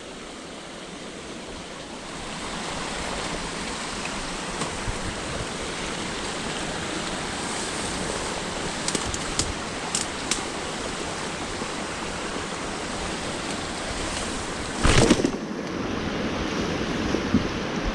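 Creek water rushing steadily, getting louder about two seconds in. A few faint clicks come around the middle, and a brief loud bump about fifteen seconds in.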